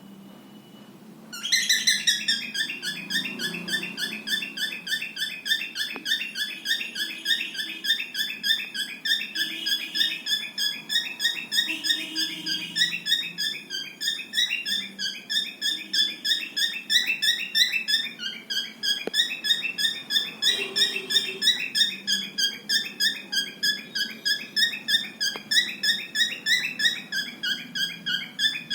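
Pet cockatiel chirping: a fast, even string of high, shrill notes, several a second, starting suddenly about a second and a half in.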